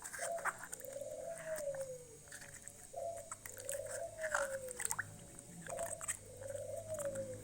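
An animal call repeated about every three seconds: a short rising note, then a longer note that swells and falls away. Scattered clicks and knocks from parts being handled run over it.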